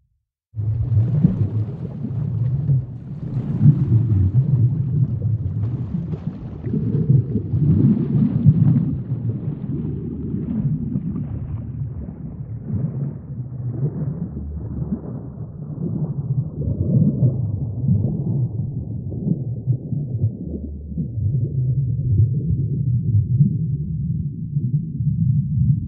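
Deep, rumbling ambient soundscape that starts abruptly after a brief silence. Its higher tones slowly fade away, leaving a low, muffled rumble.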